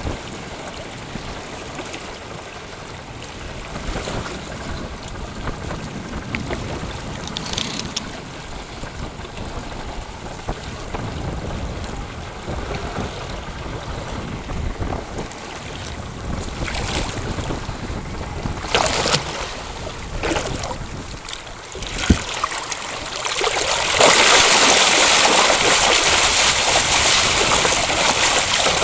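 Wind on the microphone over water lapping at a boat's side, with a few short splashes from a hooked sailfish swimming alongside. About 24 seconds in, loud continuous splashing starts as the sailfish thrashes at the surface while it is grabbed by the bill.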